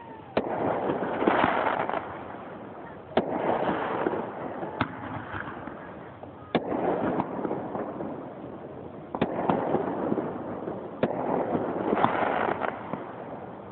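Aerial fireworks going off: six sharp bangs spaced about two to three seconds apart, each followed by a second or two of crackle and rumble.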